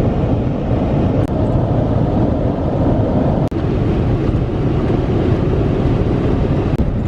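Loud, steady low rumble of heavy rain and wind noise, broken by a few brief clicks and dips in level.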